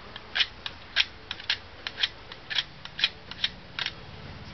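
Utility knife blade scraping the plastic slag left by a cutting disc off the cut seam of a laptop power supply's plastic case, in a quick series of short strokes, about three a second, stopping near the end.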